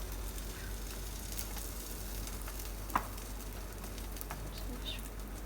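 Oil and egg sizzling steadily in a hot pan as a bun kebab patty fries, with one sharp click about three seconds in.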